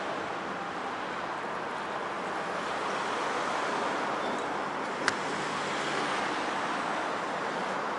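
Steady rushing noise of a bicycle ride recorded on an action camera: tyres on pavement and wind across the microphone. One sharp click about five seconds in.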